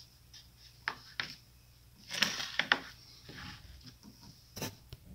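Injection-molded plastic trays being handled, turned over and set down on a table: a couple of sharp clicks about a second in, a cluster of knocks and scraping about two seconds in, and one more click near the end.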